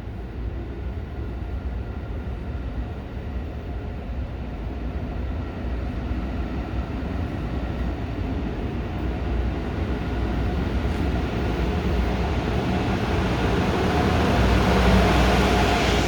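Passenger train running, a low rumble with a few steady whining tones above it, growing gradually louder toward the end.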